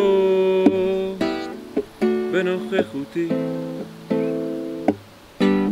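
Acoustic guitar strummed and plucked, a chord about every half second to a second, each left to ring and fade. A man's voice sings a few wordless, bending notes over the first chords.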